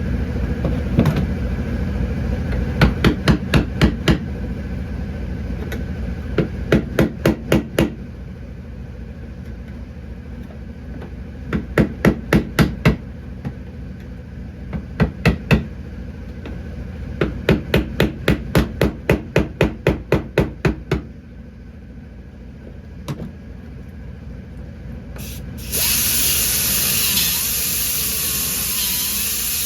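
Hammer striking sheet-metal car body panels in repeated bursts of five or six quick blows, over a steady machine hum that stops about two-thirds of the way through. Near the end a high-pitched power tool starts up and runs.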